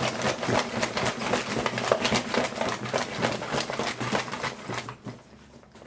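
A book bag stuffed with assorted objects (a shoe, an old phone, brushes, a spray can, a toy car) being shaken hard, the contents rattling and clattering together, stopping about five seconds in.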